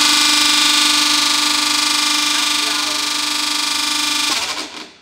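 Buffalo GL-190 planetary mixer running empty on its lowest speed with a loud, steady whine and hiss, dying away near the end. This is the funny noise that came from a part later found snapped and broken at the top of the mixer head.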